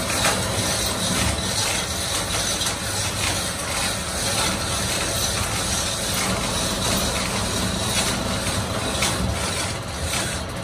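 A metalworking machine running steadily, with a constant hum and a light, irregular rattle of ticks.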